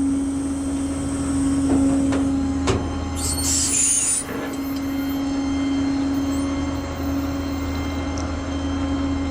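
Truck engine running steadily with an even hum, a clunk almost three seconds in and a brief hiss of air around three and a half seconds in.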